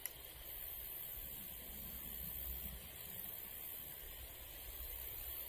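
Faint steady outdoor background noise with a low rumble, and one brief sharp click right at the start.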